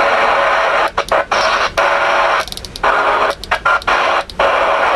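Static hiss from a CRE 8900 ten-meter radio's receiver played through its speaker. The steady noise is cut by several short dropouts, the longest about two and a half seconds in.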